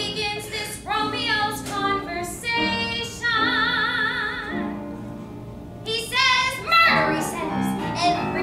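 A woman singing solo, holding one long note with wide vibrato partway through, then going on with quicker phrases after a short pause.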